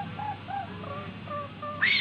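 Asian pied starling singing: a run of short whistled notes, then a louder rising squawk near the end.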